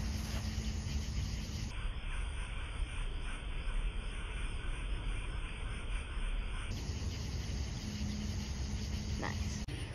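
Crickets chirping steadily in night grass, under a steady low rumble on the microphone, with a faint low hum at the start and again near the end.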